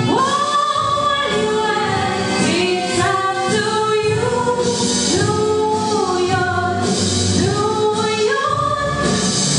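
A woman singing, in phrases of held notes that rise and fall in pitch, with accompaniment sounding underneath.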